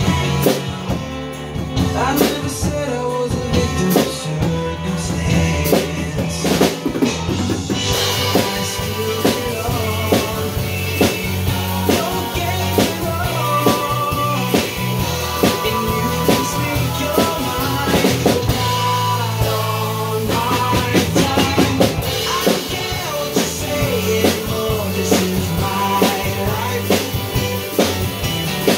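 Ludwig drum kit with Zildjian cymbals played steadily in time along with a recorded song that has a melody line, possibly sung, with snare, bass drum and cymbal strikes throughout.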